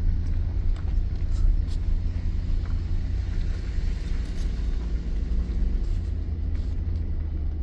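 A vehicle towing a loaded trailer, driving along with a steady low rumble of engine and road noise.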